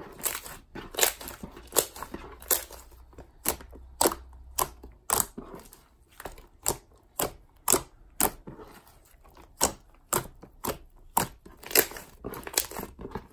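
Pink clay slime made from play dough being kneaded, pressed and stretched by hand, giving a string of sharp crunchy pops and clicks, about one and a half a second at an uneven pace.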